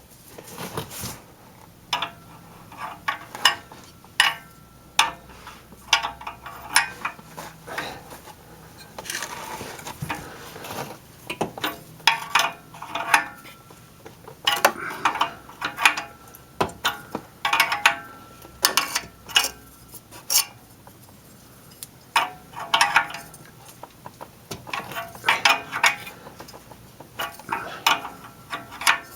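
Open-end wrench clinking on a new oxygen sensor as it is tightened into the exhaust pipe, a short stroke at a time. Quick bunches of metallic clicks and taps come every second or two, with brief pauses as the wrench is refitted.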